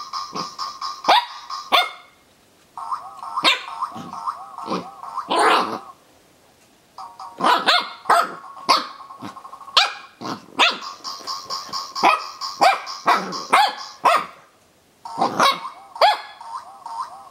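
A noise-making dog toy sounding a steady, warbling electronic tone in spells of a few seconds, cutting out and starting again about three times, while a Pembroke Welsh Corgi puppy barks and growls at it in short, sharp yaps.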